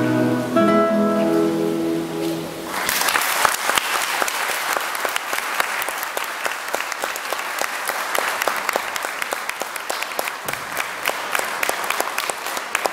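A group of nylon-string classical guitars lets its last chords ring and die away. About three seconds in, audience applause breaks out and carries on steadily.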